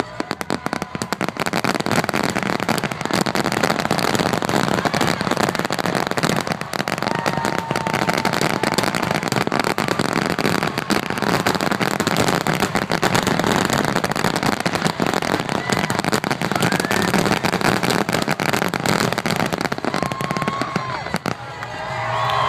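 Fireworks finale: a dense, unbroken barrage of aerial shell bangs and crackle. Near the end the barrage thins and a crowd starts cheering.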